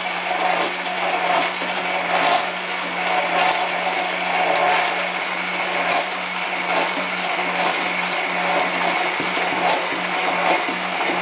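Handheld immersion blender running steadily in a glass measuring cup, a constant motor hum under a whirring churn, with a few short ticks along the way. It is blending soy milk with slowly poured oil, building the emulsion for eggless mayonnaise.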